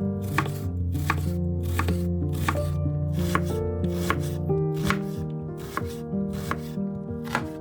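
Music with a steady beat: sustained bass notes and chords under sharp percussive hits.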